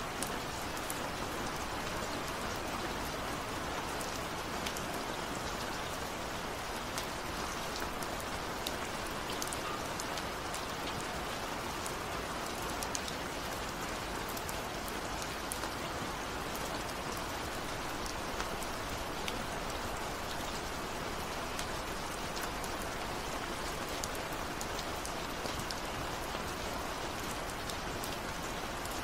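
Steady rain falling: an even hiss dotted with many small drop ticks, with no let-up.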